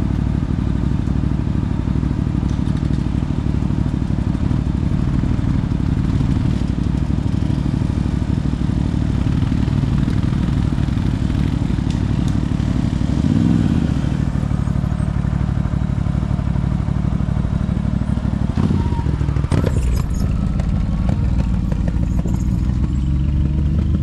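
ATV engine running steadily at low revs, with a brief rise in revs about halfway through. A couple of sharp knocks or clatters come about three-quarters of the way in.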